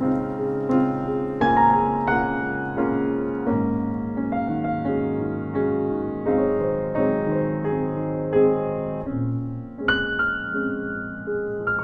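Improvised piano for four hands playing a slow, tender piece of held chords under a melody, with a strongly struck new chord about ten seconds in.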